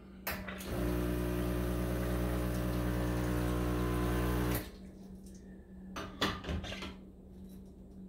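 ECM Mechanika V Slim espresso machine flushing water through its E61 group head to cool it. The lever clicks, the vibratory pump buzzes steadily for about four seconds with water hissing through the group, then cuts off suddenly. A few sharp metal clicks follow as the portafilter is fitted back into the group.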